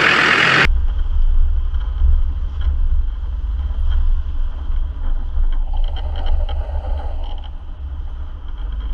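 Low, steady rumble of a four-wheel-drive vehicle's engine, with a few faint ticks.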